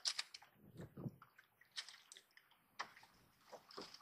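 Faint scattered clicks, rustles and a couple of soft thuds from a landing net and fishing rod being handled and set down on the deck of a small boat.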